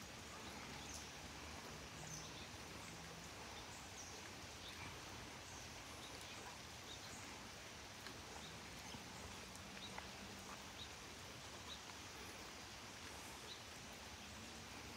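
Faint, steady outdoor background hiss with scattered short, high bird chirps.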